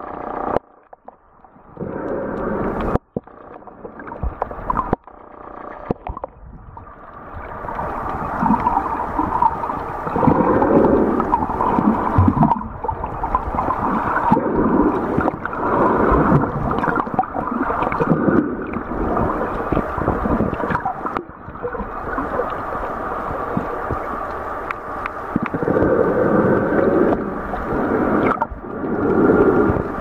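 Muffled underwater water noise: swirling and gurgling water movement, patchy for the first few seconds, then steadier.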